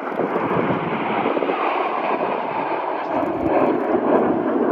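Jet noise from a formation of Red Arrows BAE Hawk T1 jets flying past, a steady rushing sound that swells a little about three and a half seconds in.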